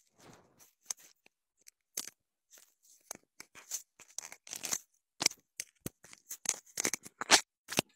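An orange tabby cat pawing and batting at a clip-on wireless microphone held right up to it. It comes through as irregular close-up knocks, scratches and rustles on the mic, sparse at first and coming faster and louder toward the end.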